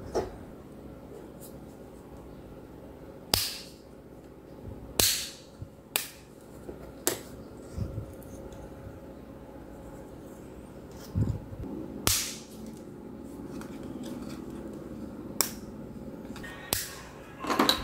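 Sharp, short snaps and clicks at irregular intervals, about seven in all, with softer handling thuds between them: a flat PVC sheet being cut with a cutter knife and snapped into small pieces on a cutting mat.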